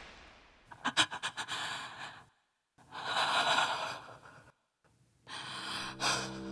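A person's shaky, heavy breathing: three long gasping breaths with short silences between them, the first opening in a quick stutter. The tail of a deep boom fades out at the start, and low bowed-string music comes in near the end.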